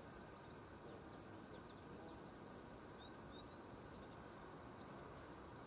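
Faint small birds chirping over a quiet, steady background hiss: many short, quick high chirps scattered throughout.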